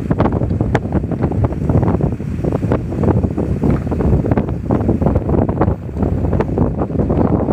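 Strong wind buffeting the microphone: a loud, continuous rumble with frequent crackles.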